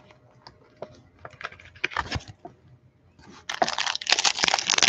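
Light plastic clicks and taps as trading cards in plastic holders are handled, then from about three seconds in a loud, continuous crinkling of card packaging.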